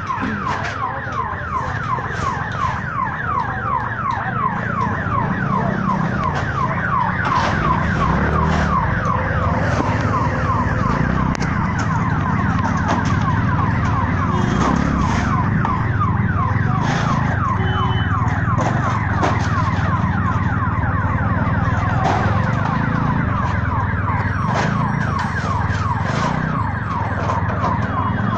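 Ambulance siren sounding in fast, repeating falling sweeps, several a second, over a steady low vehicle rumble.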